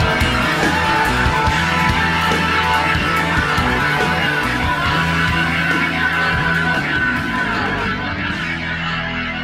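Background music with sustained tones and a steady beat, slowly fading out toward the end.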